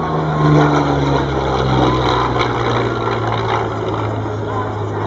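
Yakovlev Yak-3 fighter with an American Allison V-12 piston engine flying past low. The engine drone is loudest about half a second in, and its pitch falls slowly as the plane passes and draws away.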